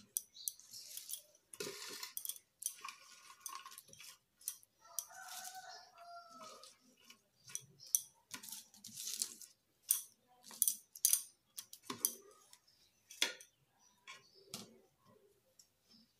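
Fresh fenugreek leaves being picked from a plastic colander and dropped into a plastic food processor bowl: soft rustling with light clicks and taps, the sharpest near the end. A drawn-out pitched call with a bending pitch sounds faintly in the background about five seconds in.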